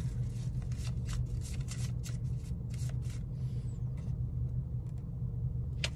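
Steady low hum inside a car's cabin, with a run of short crisp rustles and clicks through the first half and one more near the end, as of tarot cards being handled.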